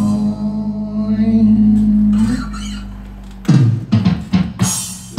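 Live rock band of acoustic guitar, electric bass and electronic drum kit. A chord and a deep bass note are held and fade. About three and a half seconds in, the band comes back in with a run of struck accents and a cymbal crash.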